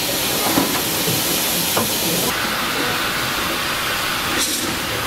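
Steam hissing steadily from small narrow-gauge steam locomotives standing in steam. About two seconds in the hiss changes, losing its highest part.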